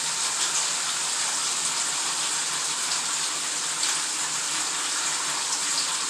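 Bathtub filling: water running steadily from the tap into the tub, an even rushing hiss.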